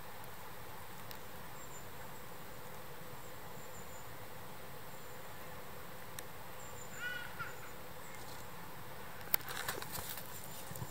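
Quiet woodland-floor ambience: a steady hiss with faint, short high chirps from insects. A brief bird call of a few quick notes comes a little past the middle, and dry leaves crackle and click near the end.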